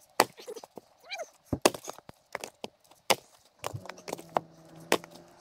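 Split firewood knocking and clattering as pieces are tossed onto a woodpile: several sharp wooden knocks at irregular intervals. A faint steady low hum comes in about two thirds of the way through.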